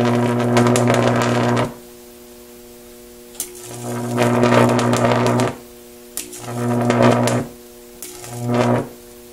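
High-voltage arcs from a 4.2 kV center-tapped pair of microwave-oven transformers, drawn between two probes: four bursts of harsh buzzing crackle with a strong mains hum. The first two last about two seconds each, the last two are shorter, and each starts and cuts off sharply.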